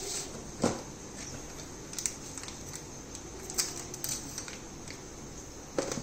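Scattered small clicks and taps of objects being handled while coffee ingredients are got ready: a sharp tick a little under a second in, a couple around two seconds, two more between three and a half and four seconds, and one just before the end, over a steady low hum.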